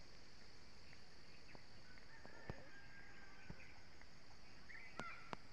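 Faint rural outdoor ambience: a steady high insect drone with a few short bird chirps, broken by several sharp clicks, two of them close together near the end.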